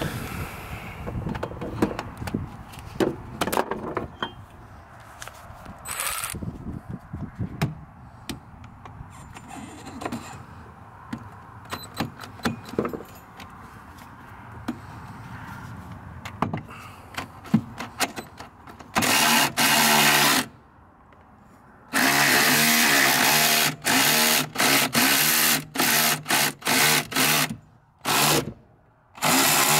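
Clicks and knocks of a cordless electric ratchet with an extension and 13 mm socket being worked onto a bolt, then, about two-thirds in, the ratchet's motor running loud in short runs with brief stops as it backs out a bolt locked in place by dirt and debris.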